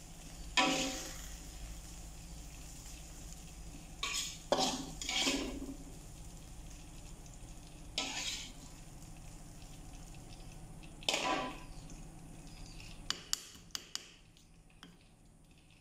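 Metal spoon scraping fried green chillies and bitter melon into a stone mortar (cobek) in several short scrapes, then a few sharp taps of the spoon on the stone near the end. A steady low hum runs underneath.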